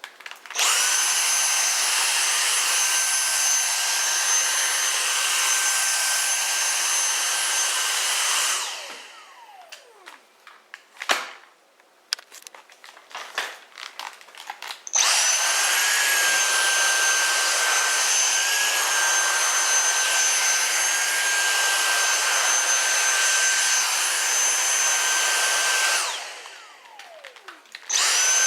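Vacuum cleaner switched on and running with a steady high whine. It is cut off about eight seconds in and winds down, and a few clicks and knocks follow. About fifteen seconds in it is switched back on and runs again, then winds down once more and starts up again near the end.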